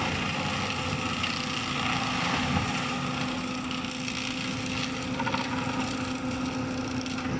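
John Deere 6190R tractor's six-cylinder diesel running steadily under load while driving an FAE hammer mulcher that grinds soil and brush, a dense mechanical din with a steady hum held underneath.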